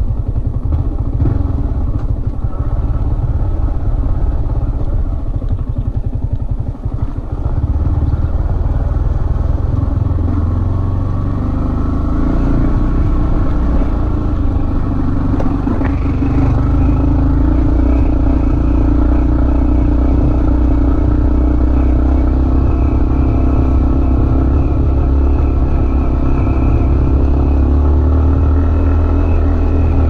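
Yamaha MT-15's 155 cc single-cylinder engine pulling the bike uphill on a rough path. For the first several seconds the engine note is low and uneven. After a brief dip about seven seconds in, it settles into a steadier, stronger drone that holds.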